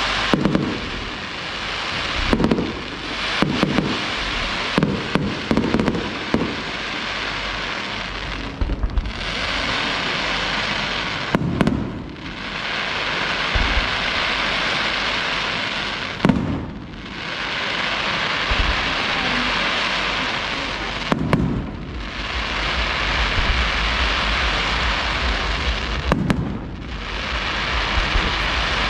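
Fireworks display: shells burst with deep booms, several close together at first, then one about every five seconds. Between the bursts runs a steady dense crackling hiss.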